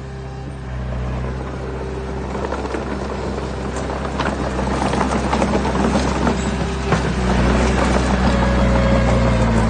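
Heavy diesel machinery engine running steadily. After about two seconds it is joined by a growing rattle and clatter of stones, which gets louder from about four seconds in.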